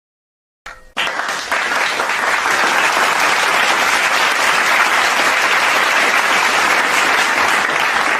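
Applause sound-effect clip: a crowd clapping steadily, starting abruptly about a second in.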